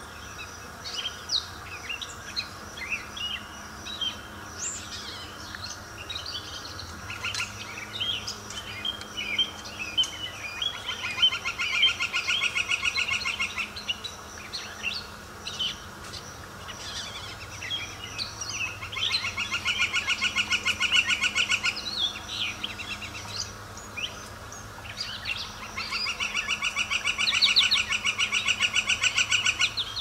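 Several songbirds singing: a steady stream of short chirps and twitters, with a rapid trill of about three seconds repeated three times.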